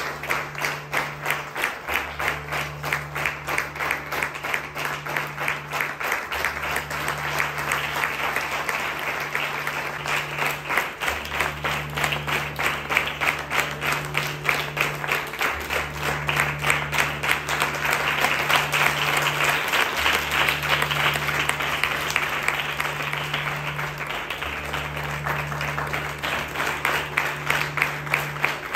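Audience applause: many hands clapping throughout, the claps peaking at a fairly even beat of about three a second. A low steady drone sounds under the clapping, repeating in blocks of about four seconds.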